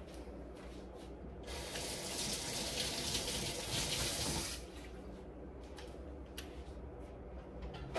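Kitchen sink faucet running while hands are washed under it: the water starts about a second and a half in, runs for about three seconds, then is shut off.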